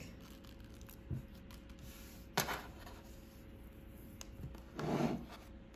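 Quiet handling of knit fabric and a peeled paper tape backing strip: a sharp tick about two seconds in and a soft rustle near the end, over a faint steady hum.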